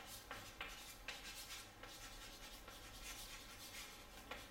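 Chalk writing on a chalkboard: faint, irregular scratching and tapping strokes as a word is written out.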